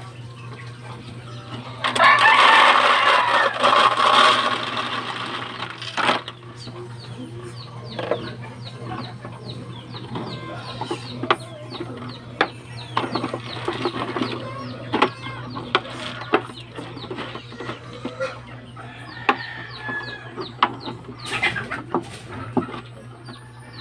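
Dry chicken feed poured from a plastic bottle into a clear plastic water-jug feeder: a dense rush of falling grain for about four seconds. Then scattered sharp clicks and taps as the plastic jug of feed is handled, with chickens clucking.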